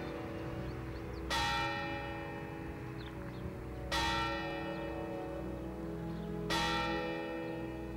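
A large bell tolling slowly, struck three times about two and a half seconds apart, each stroke ringing on under a steady low hum until the next.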